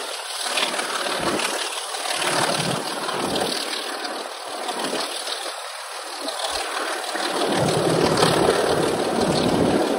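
Wind buffeting the microphone held out of the window of a moving train, in irregular gusts over the train's steady running noise.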